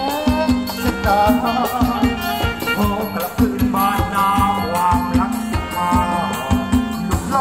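A live band playing Thai ramwong dance music: drums keep a steady, even beat under a melody line and held chords.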